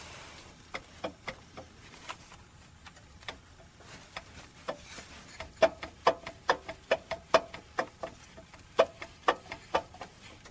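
Lada water pump bearing clicking as the pump pulley is rocked and turned by hand: sharp metallic clicks, sparse at first, then louder and about two or three a second from about halfway in. The clicking is the play in a dead, worn-out pump bearing.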